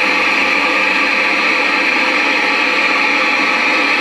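A WWII BC-603 FM receiver gives a loud, steady hiss through its speaker: the open-channel noise of an FM set with no station coming in. It cuts off suddenly at the end as a knob on the receiver is turned.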